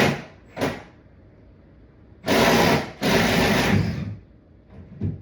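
Power drill running in bursts, a short one at the start, another just under a second in, then two longer runs from about two to four seconds in, as the bit bores through a wooden floor joist.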